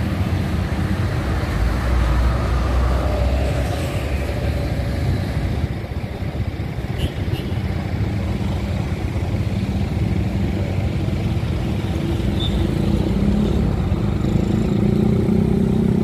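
Large tour-bus diesel engines running as the coaches move slowly through a car park, a steady low rumble that grows somewhat louder near the end as a bus pulls away close by.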